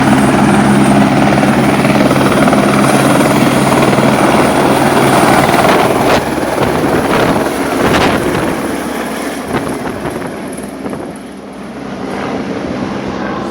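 Helicopter running with a loud steady whir of rotor and engine. About halfway through its low drone drops away and the sound grows quieter, with a couple of sharp knocks in between.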